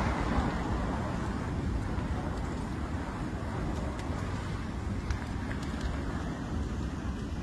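Steady low rumble of the Tajogaite volcanic eruption mixed with wind on the microphone, with a few faint cracks from the burning lava front.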